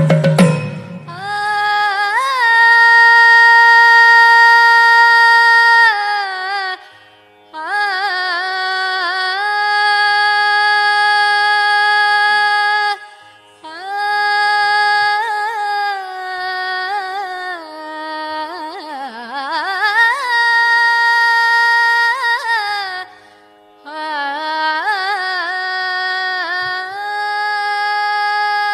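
Slow Carnatic-style devotional melody: one pitched line holding long notes with sliding ornaments, in four phrases of several seconds each, broken by brief pauses.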